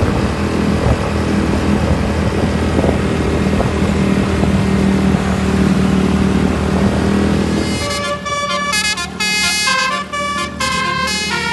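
A loud vehicle engine drone with a steady low hum. About eight seconds in, a telolet horn starts up: an Indonesian bus's multi-trumpet musical air horn, playing a quick melody of short notes that step up and down in pitch.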